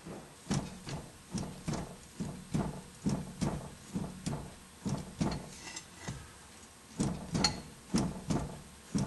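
Worn lower ball joint in a 1998 Mitsubishi Eclipse's strut front suspension clunking over and over as the tire is pried up and down with a pry bar, about two or three clunks a second with a short pause near the middle. The clunks are the play of the loose ball joint, freed from the weight of the wheel and spindle.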